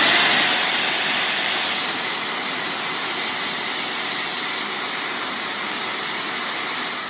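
Hoover wet/dry vac's detachable motor head running as a blower, a loud steady rush of air as it blows dust out of a vacuum filter. It is switched off near the end and begins winding down.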